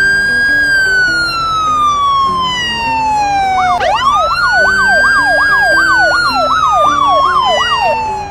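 Emergency vehicle siren sound effect: a wail that sweeps up fast and falls slowly, starting again about halfway through. Over the second wail a second siren yelps rapidly up and down, about two or three times a second.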